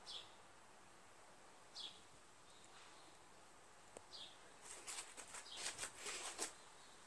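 Near silence: faint room tone with three short, high chirps that fall in pitch, about two seconds apart, and a flurry of faint high ticks and rustles about two thirds of the way through.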